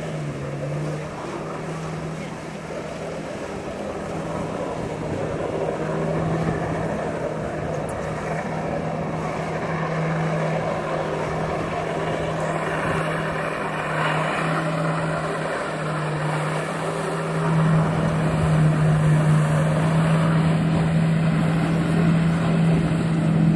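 Personal watercraft engine running hard to pump water up the hose of a flyboard, a steady drone over the rush of the jet's spray. It grows louder about two-thirds of the way through.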